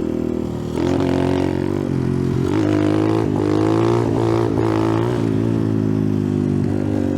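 Icebear Champion 125cc minibike's single-cylinder four-stroke engine running under way through a cheap aftermarket exhaust. Its pitch rises and falls several times with the throttle.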